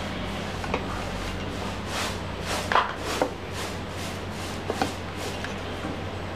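Handling noise as a smartphone is set onto a small metal stand: a handful of light knocks and rubs over a steady low hum.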